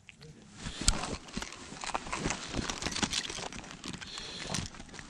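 Irregular crunching and rustling from movement on the snow-covered ice, starting about half a second in, with one sharp crunch about a second in.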